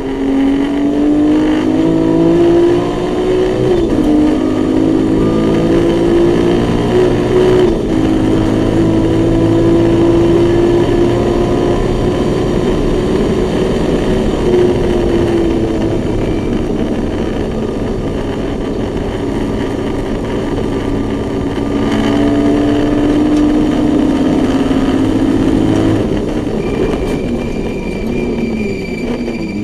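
BMW E21 race car's 2.7-litre naturally aspirated M20 straight-six, heard from inside the cabin, running hard on track. The revs climb to a gear change about four seconds in and another near eight seconds, hold high, ease off, climb again, then fall away near the end.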